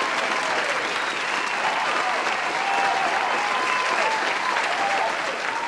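A crowd applauding steadily, with cheering and whooping voices over the clapping.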